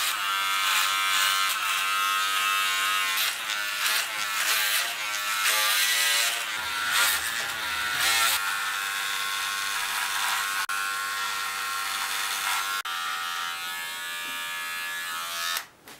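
Corded electric hair clipper running with a steady buzz as it shaves the side and back of a head, its pitch wavering between about three and six seconds in. It stops just before the end.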